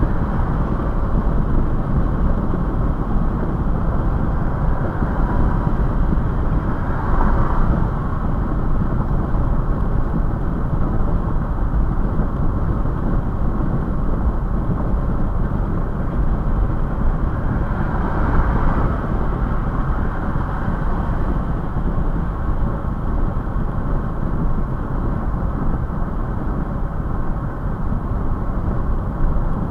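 Steady road, wind and engine noise heard inside a Toyota FJ Cruiser cruising at about 65 mph on the freeway. It rises briefly twice, once about seven seconds in and once about eighteen seconds in.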